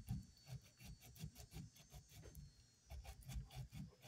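Faint, rhythmic scrubbing strokes, about four a second, as an old electric starter's part is rubbed clean by hand.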